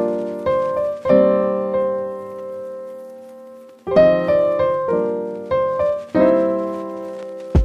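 Background piano music: chords struck in a gentle pattern, with one long chord left to ring and fade in the middle before the playing resumes.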